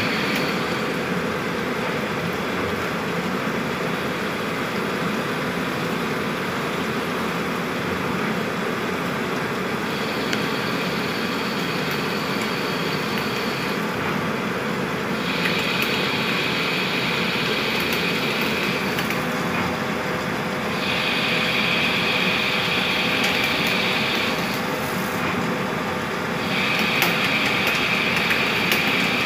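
HMT Stallion 100 SU CNC lathe running a turning cycle with coolant flowing: a steady machine and coolant noise. A higher-pitched cutting sound joins it about four times from about a third of the way in, each time for a few seconds, as the tool takes its passes.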